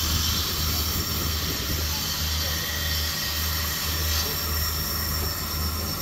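Railway train or locomotive at a station: a steady low hum that swells and dips, under a constant hiss.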